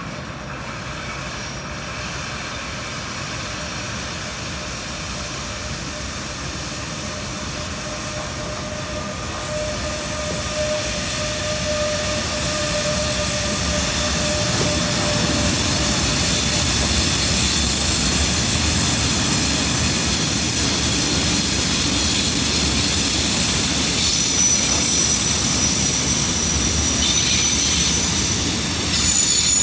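Railpool BR 186 TRAXX multi-system electric locomotive hauling a steel freight train through the station, approaching and passing with a thin steady whine about ten seconds in. Then the tarpaulin-covered steel coil wagons roll past with a steady rumble of wheels on rail that grows louder and holds. Thin high squeals come in over the last few seconds.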